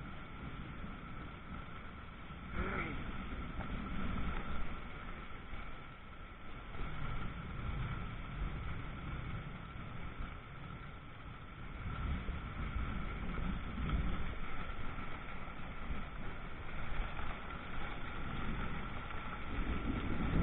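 Heavy thunderstorm rain with a low rumbling that swells and fades several times, like distant thunder rolling.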